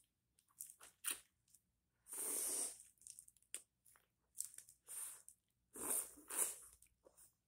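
Close-up eating sounds of a mouth biting and sucking at a whipped-cream-covered cucumber: scattered wet clicks and crunches, with two longer noisy stretches about two and six seconds in.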